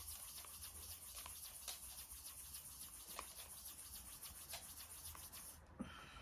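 Faint, irregular light clicks and scratches of fingers handling and wiping a small plastic cosmetic container, cleaning off powder that leaked from it. A high steady hiss underneath cuts off near the end.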